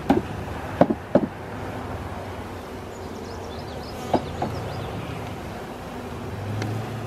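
A bee package box knocked against the hive several times to shake the bees out: three sharp knocks in the first second or so and two more about four seconds in, over the steady hum of the bees.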